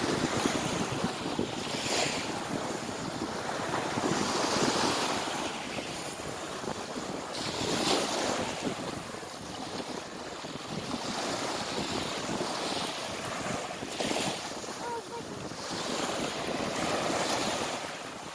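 Small waves breaking and washing up on a pebble beach, the surf swelling and easing every few seconds, with wind buffeting the microphone.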